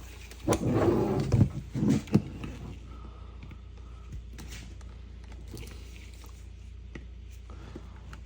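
Plastic parts of a Dyson V10 direct drive cleaner head being pressed hard together by hand to clip a part in: a loud scraping, creaking stretch about half a second in, then two short knocks near two seconds, the second a sharp click, with faint handling ticks after.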